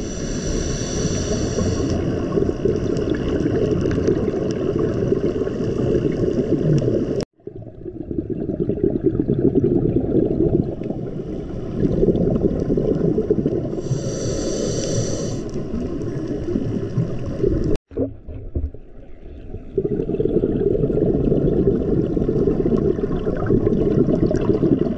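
Steady muffled underwater water noise picked up through a GoPro's waterproof case, mostly a low rumble, with two short hissing bursts about fourteen seconds apart. The sound breaks off for an instant twice where the clips are cut together.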